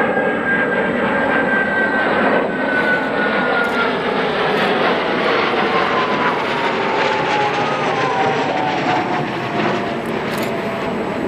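Military jet flying overhead: a steady, loud jet engine noise with a thin whine that slowly falls in pitch as it passes.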